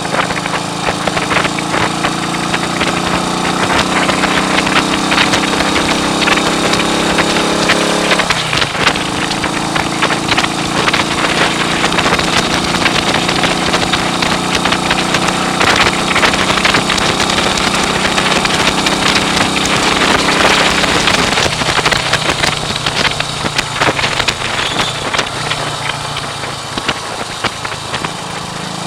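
1939 AJS Model 22 250 cc single-cylinder engine under way on the road, rising in pitch as it accelerates, dropping sharply at a gear change about eight seconds in, running steadily, then easing off a little past twenty seconds in. Wind buffeting on the microphone runs over it.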